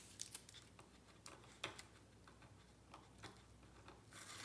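Near silence with a few faint, scattered ticks of paper and masking tape being handled as the tape is taken off a watercolour sheet.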